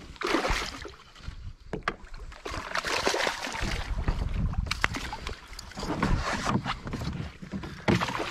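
A hooked fish thrashing and splashing at the water's surface beside a kayak as it is played and netted: irregular bursts of splashing with a few sharp knocks.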